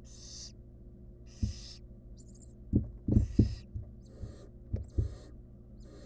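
Barn owl nestlings giving raspy, hissing begging calls, each about half a second long and repeating roughly once a second, with short low thumps and knocks from movement in the wooden nest box. The thumps are the loudest sounds, bunched in the middle and latter part.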